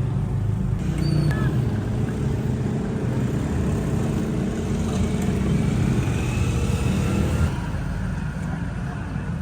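Street traffic: vehicle engines running with a steady low rumble, easing slightly near the end.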